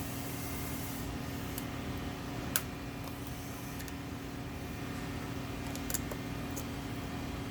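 A few sharp metallic clicks of pliers gripping and turning the broken bolt's upper portion out of the hole, over a steady machine hum.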